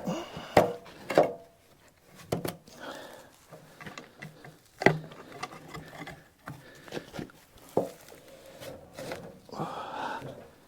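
Irregular wooden knocks and scrapes as a log is shifted along the sawmill's log deck, with several sharp clunks, the loudest about five seconds in.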